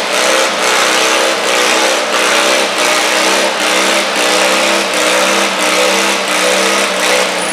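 Stock-class garden tractor engine running hard under full load as the tractor drags a weight-transfer pulling sled. The engine note sags and picks back up in a regular surge about every three-quarters of a second.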